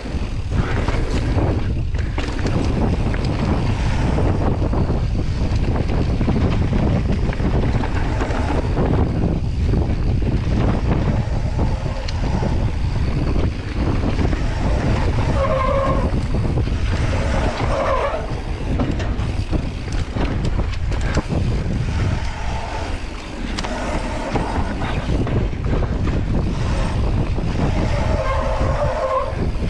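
Mountain bike descending a dirt singletrack at speed, heard from a camera on the bike: a steady rumble of tyres on dirt and wind over the microphone, with frequent rattles and knocks from the chain and suspension over bumps.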